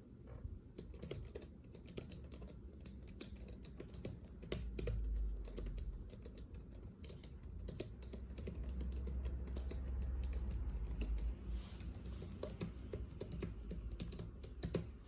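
Typing on a Logitech Craft wireless keyboard: a quick, irregular patter of key clicks that starts about a second in and keeps going.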